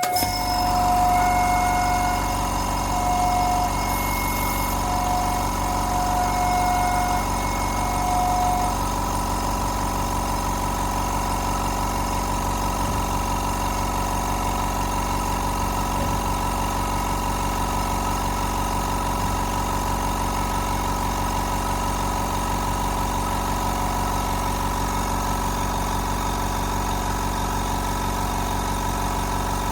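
CNC router spindle at 20,000 rpm driving an 8 mm two-flute carbide endmill through 5083 aluminium: a steady, even cutting whine over a machine hum, with no pauses.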